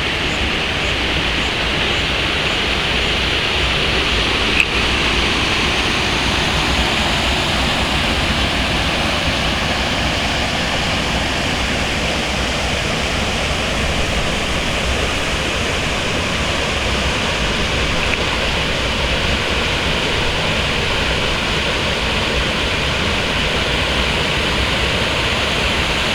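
Steady rushing noise, even throughout, with a single short click about four and a half seconds in.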